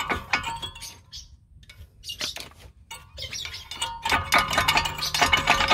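Metal clicking, clinking and scraping as a screwdriver pries a brake pad out of a Volkswagen Golf Plus front brake caliper. The clinks come thicker and louder in the second half.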